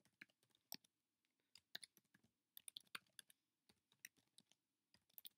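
Faint keystrokes on a computer keyboard, typing at an uneven pace with single clicks and short quick runs.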